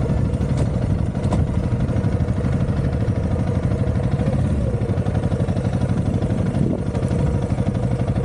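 Honda CRF300L's single-cylinder four-stroke engine running steadily at low revs.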